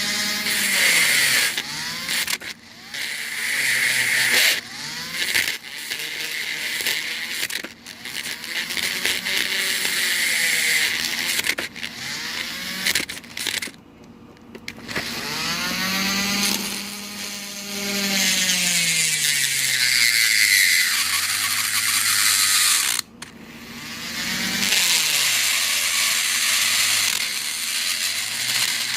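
Electric drill boring into the pin chambers of a Kaba padlock core, its motor speeding up and slowing down again and again and stopping briefly a few times.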